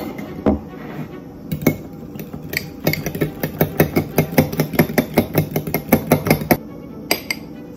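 A fork beating egg wash in a small glass bowl. After a few single taps, the tines clink rapidly against the glass, about five strikes a second, for around four seconds.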